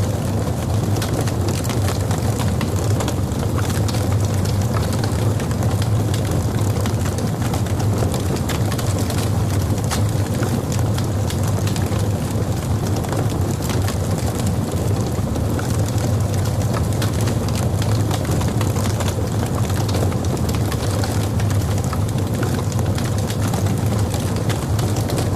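Log fire burning: frequent small crackles and pops scattered over a steady low rumble.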